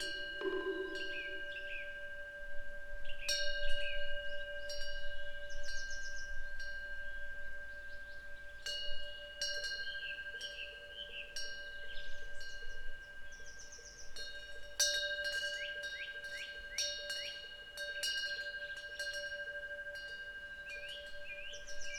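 Korean temple eave wind bell (pungyeong) ringing, its clapper striking in clusters every few seconds and a steady ringing tone hanging on between strikes. Birds chirp briefly now and then alongside.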